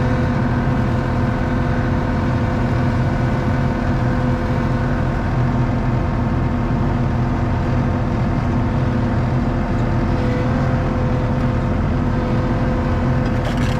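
ASV RT-40 compact track loader's diesel engine running steadily at working speed, with a steady whine over it.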